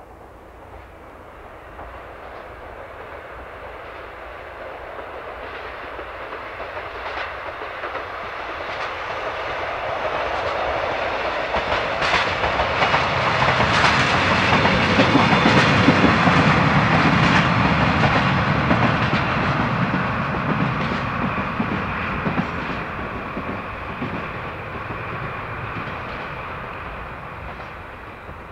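JR DD51 diesel-hydraulic locomotive hauling a Hoki 800 hopper car passes by. Its engine drone and the wheels clicking over the rail joints grow louder, peak about halfway through, then fade away.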